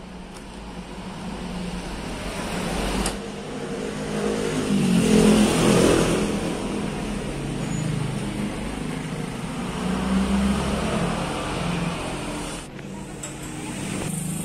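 Road traffic: motor vehicles passing by, the engine noise swelling to a peak about five seconds in and again near ten seconds, then easing. A couple of light clicks come through under it.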